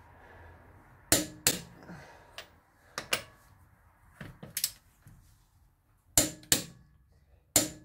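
Click-type torque wrench on wheel lug nuts, clicking as each nut reaches the set torque of 100 ft-lb. There are five sharp double clicks, about one every second and a half.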